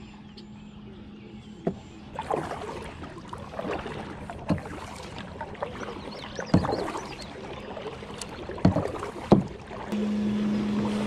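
Kayak being paddled on a creek: irregular paddle strokes splashing and knocking, with water swishing between them. A steady low hum comes in near the end.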